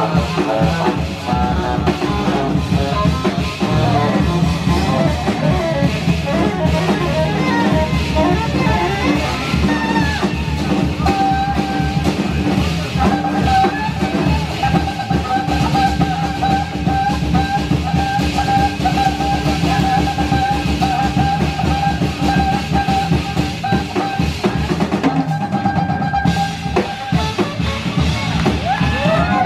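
Live jazz band playing at full volume, with drum kit, tenor saxophone and guitar, and a long held note over the band through the middle.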